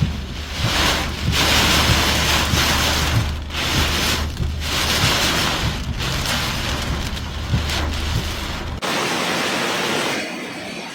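Strong typhoon wind buffeting the microphone over a loud rushing noise of wind and sea. The low buffeting cuts off abruptly about nine seconds in, leaving a softer hiss.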